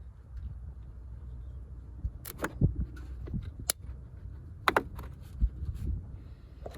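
A few sharp metallic clicks and clinks as the positive battery cable clamp is fitted onto the battery post, over a low steady rumble.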